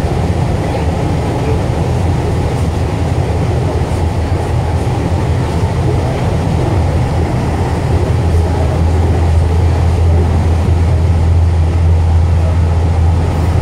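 Link light rail car running at speed, heard from inside the car: a steady low rumble and hum, growing slightly louder over the last several seconds.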